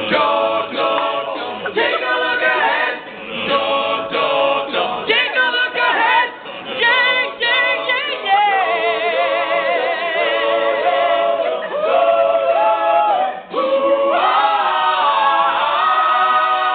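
Male a cappella group singing the closing bars of a rock song in close harmony. Midway a voice holds a wavering note with wide vibrato over the others, and near the end the voices come together on a long held final chord.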